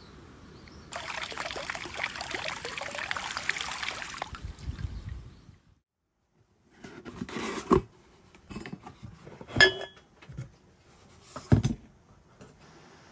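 Running water splashing for about three and a half seconds as a maitake's base is rinsed. It fades out, and then come three separate knocks on a kitchen surface, the middle one with a brief ring.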